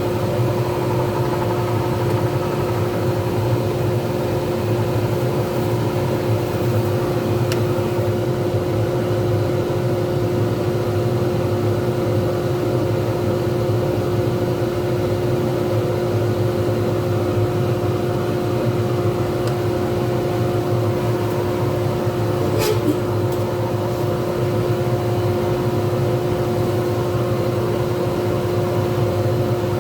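Pen-turning lathe motor running at steady speed with a constant hum, while a resin pen blank is worked on it; two faint brief ticks, one about 7 seconds in and a brighter one about 23 seconds in.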